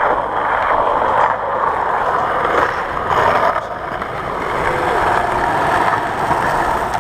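Skateboard wheels rolling over street asphalt, a steady rough roar heard from close to the board.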